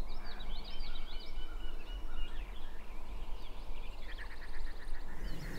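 Several wild songbirds chirping and whistling, with a rapid trill about four seconds in, over a steady low rumble.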